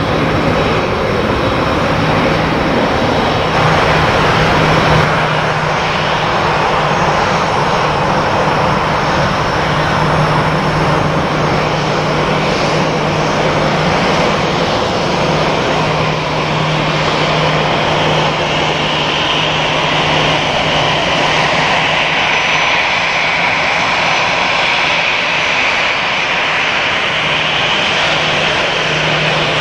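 Airbus A321-211's CFM56 jet engines running at low taxi power: a steady, loud jet noise, with a higher whine that grows stronger in the second half as the aircraft draws near.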